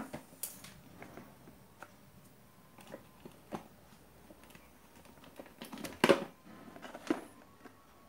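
Handling noises: scattered light clicks and knocks as an opened AC adapter's circuit board and its cables are moved about, with a louder clatter about six seconds in.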